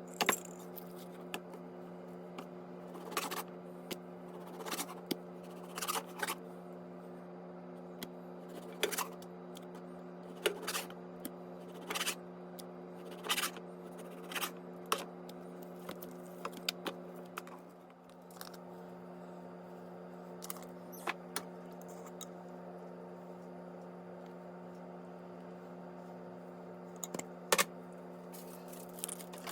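Kitchen prep handling: short clicks, snips and scrapes every second or two, over a steady low electrical hum.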